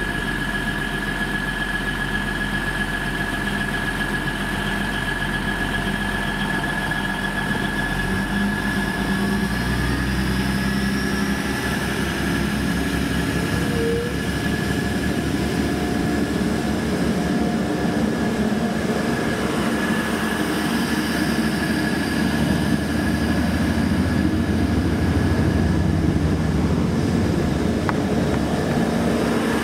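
Grand Central Class 180 five-car diesel multiple unit pulling away from a platform, its underfloor diesel engines working hard under power with a steady high whine. A note rises as the train gathers speed, and the rumble grows louder as the coaches pass close by.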